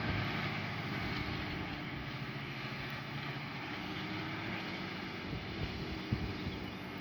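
Massey Ferguson 7718S tractor's engine running steadily under load while ploughing, a continuous droning hum.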